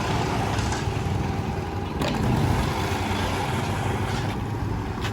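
An engine running steadily with a low, even hum, and a single sharp knock about two seconds in.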